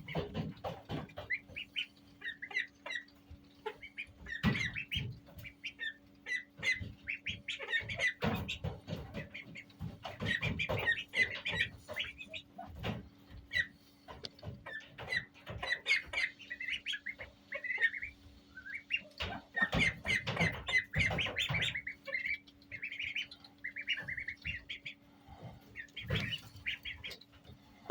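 A group of Indian Runner ducklings peeping constantly: many short, high calls overlapping. Scattered knocks and bumps run among them, over a low steady hum.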